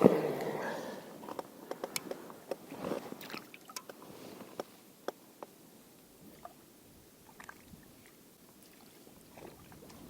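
Close handling noises: a rustle at the start, then scattered small clicks and taps that die away to faint background.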